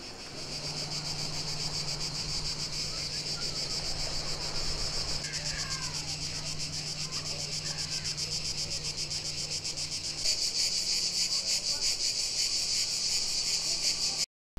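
Cicadas calling in a dense chorus, a fast pulsing high buzz that goes on throughout and gets louder about ten seconds in. A low steady hum lies under it until then, with a few faint chirps midway.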